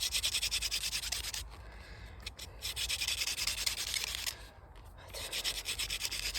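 Hand-drill fire-lighting: a wooden spindle twirled fast between the palms and grinding in a wooden hearth board. It comes as a rapid back-and-forth rubbing in three bouts, with short breaks between them. This is friction building up hot wood dust, and the board is starting to smoke.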